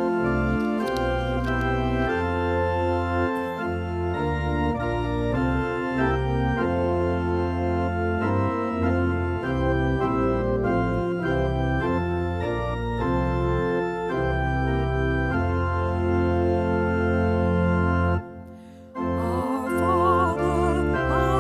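Church organ playing a hymn introduction in full sustained chords with a deep bass line. Near the end the organ breaks off briefly, then a woman's voice starts singing the hymn with the organ.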